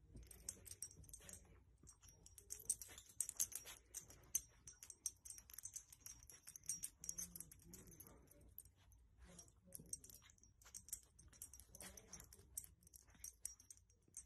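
Small dog nosing and pushing a fleece blanket: faint rustling of fabric with many light, quick clicks and ticks.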